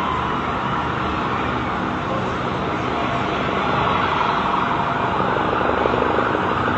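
Emergency vehicle sirens sounding, their pitch gliding up and down over a steady wash of noise, growing a little louder about four seconds in.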